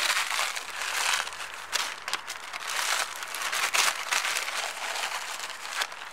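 Plastic bag of crushed Russisch Brot biscuits crinkling as it is handled and shaken out, a dense crackly rustle that stops abruptly at the end.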